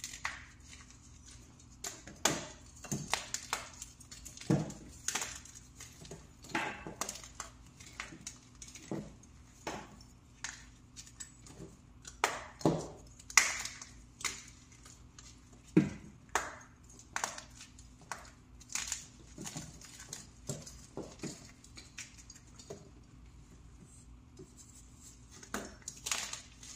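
Freshly made blocks of plain pressed powder crushed by hand, giving short dry crunches and crumbles at an uneven pace of about one to two a second, some with a soft thud underneath.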